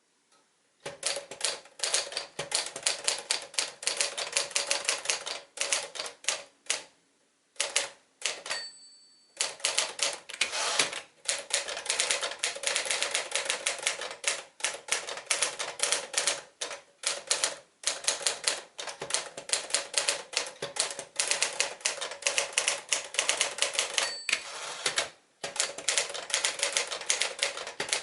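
1958 Smith-Corona Clipper manual typewriter being typed on in fast runs of keystrokes with brief pauses. Its bell rings twice, about eight seconds in and again near the end.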